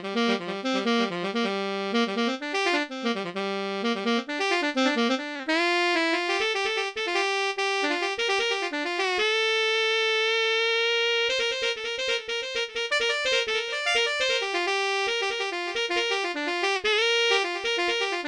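Instrumental music played on an electronic keyboard: quick runs of notes, one note held steady for about two seconds midway, then fast runs again.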